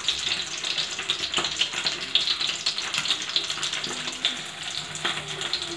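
Bata fish frying in hot mustard oil in a karahi: a steady sizzle with frequent small crackles and pops.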